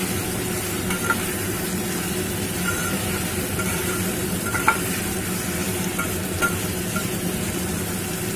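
Cubed potato, pumpkin and brinjal sizzling as they fry in hot mustard oil in a stainless steel pot. They are stirred with a flat metal spatula that now and then scrapes and clinks against the pot.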